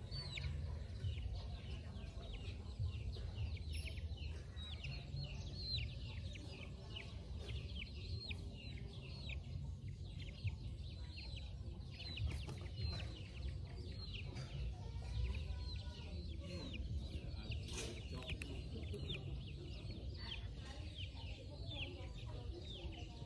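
Young chickens foraging, with a near-constant run of short, high, falling peeps, several a second, over a low rumble.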